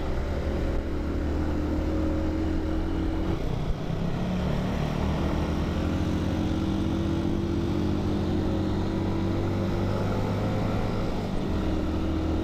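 Honda TMX 125 motorcycle's single-cylinder four-stroke engine running steadily under way, its note dipping briefly and then settling again about four seconds in.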